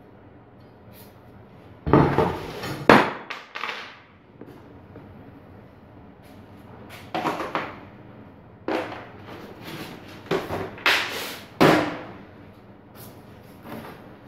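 Motorcycle steel brake discs and their bolts being set down and handled on a wooden workbench: a string of sharp metallic clanks and knocks. They come in a cluster about two to four seconds in and again from about seven to twelve seconds, over a faint steady background hum.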